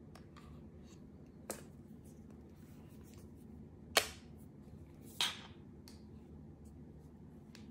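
Sharp plastic-and-metal clicks as the Apple Pencil Pro is brought against the iPad's side edge and snaps on magnetically: a light click about one and a half seconds in, then two louder clicks about four and five seconds in. Fainter ticks come from handling the tablet and packaging.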